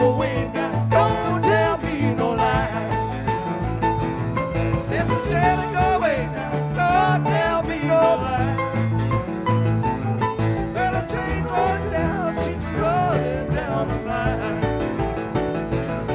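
Live blues-rock band playing an instrumental break: a lead electric guitar line with bent, wavering notes over bass and drums.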